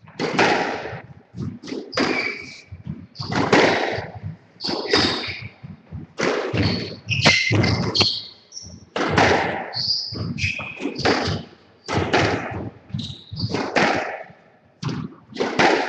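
A squash rally: the ball repeatedly cracking off rackets and the court walls, with shoes squeaking on the wooden floor between the shots.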